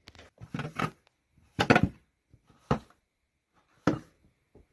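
Footsteps in fresh snow, about one step a second.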